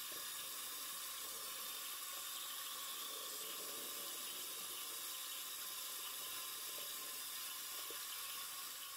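Kitchen tap running in a steady stream over a carved pumpkin in a stainless steel sink as it is rinsed, fading out near the end.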